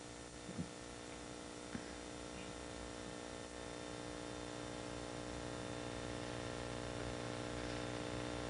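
Steady electrical hum with many overtones under a hiss, growing slightly louder, with two faint clicks in the first two seconds: mains hum and noise in the recording.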